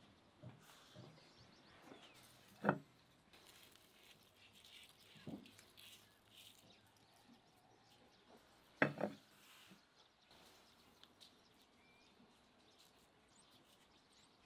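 Quiet ambience with faint bird chirps. Two short, louder sounds break it, about three seconds in and about nine seconds in.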